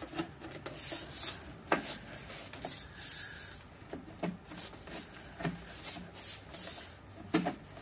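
Hands pressing and rubbing on a black sheet-metal split stovepipe as it is pushed down into an oval to work the seam's slot into its channel, with scattered light clicks.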